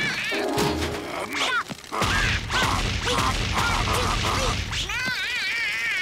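Cartoon slapstick sound effects over music: a quick run of mallet whacks on a whack-a-mole game, mixed with wobbling, warbling comic tones.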